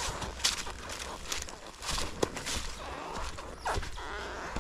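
Irregular crunching and rustling of footsteps and movement on dry ground and brush, a few sharper crackles among them.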